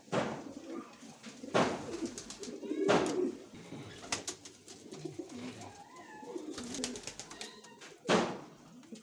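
Fancy domestic pigeons cooing in a coop, broken by about four loud, short flurries of wing flaps.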